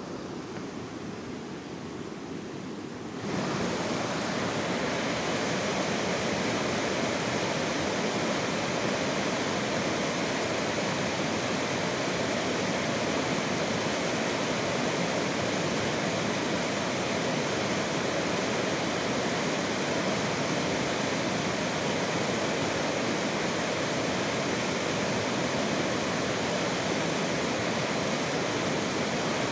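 Steady rushing hiss with no distinct events, which jumps to a louder level about three seconds in and then holds evenly.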